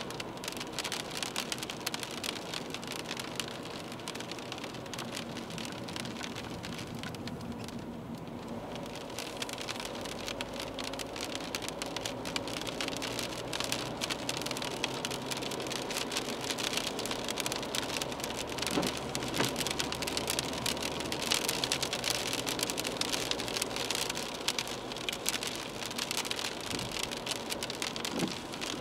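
Rain hitting the windscreen and body of a moving BMW 320d, heard from inside the cabin, along with tyre hiss on the wet road. A low engine and road drone grows stronger about ten seconds in.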